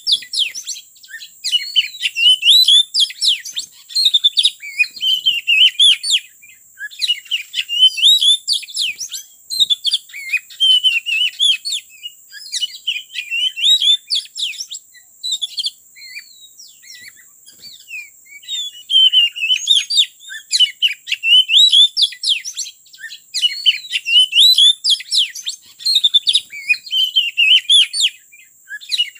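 Oriental magpie-robin singing: a loud, unbroken run of quick, varied whistles and chirps, with short pauses a few times.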